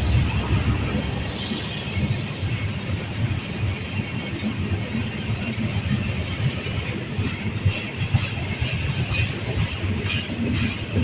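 Union Pacific train rolling past: a steady rumble of cars on the rails, with repeated clicking of wheels over rail joints in the second half. No horn is sounding.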